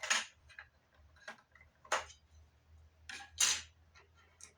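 About six separate sharp clicks and knocks of hard, small objects being handled on a hard surface, the loudest just after the start and about three and a half seconds in, over a faint low hum.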